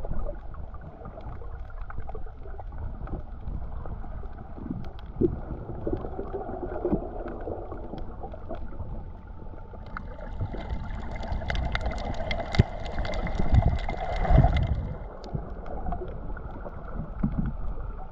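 Underwater sound picked up by a camera beneath the surface: a low, muffled water rumble with scattered clicks and crackles. About ten seconds in, a higher hiss with a faint steady tone joins it for about five seconds, then fades.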